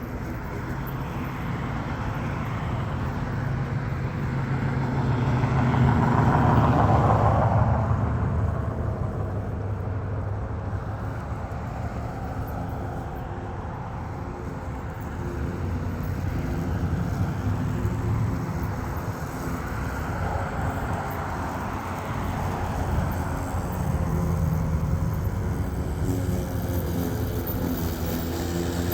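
Road traffic going by over a steady low hum, with one vehicle passing loudest about six to eight seconds in.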